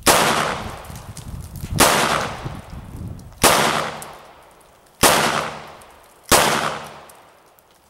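Five shots from a Taurus 905 9mm revolver firing full-metal-jacket rounds double action, spaced about one and a half seconds apart, each trailing off over about a second.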